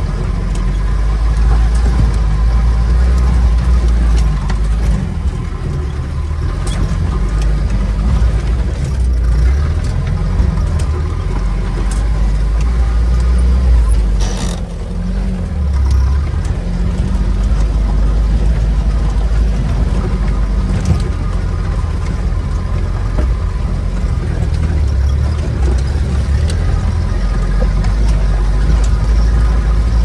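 UAZ off-road vehicle driving over a rough, rocky mountain track, heard from inside the cabin: a loud, steady rumble of engine and road, with occasional sharp knocks and rattles from the bumps.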